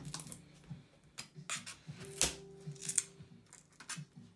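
Small clicks and scrapes of a spudger and fingertips prying at the speaker inside an opened 13-inch MacBook Air, with a few sharp clicks in the middle.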